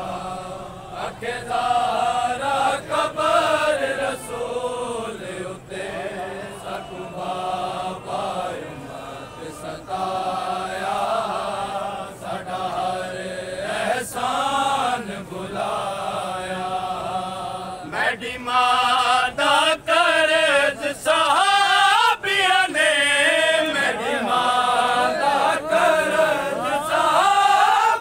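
Men's voices chanting a vain, a mourning lament for Hazrat Fatima, in long drawn-out lines. The chant grows louder, with a strongly wavering pitch, from about eighteen seconds in.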